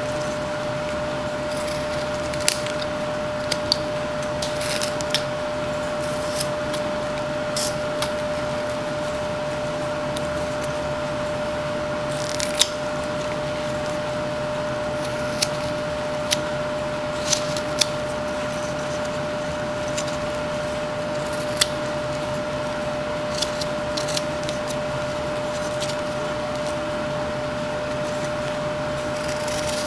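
Pocket knife whittling a wood block, with short, sharp slicing sounds at irregular intervals as chips are cut away, over a steady background hum with a constant whine.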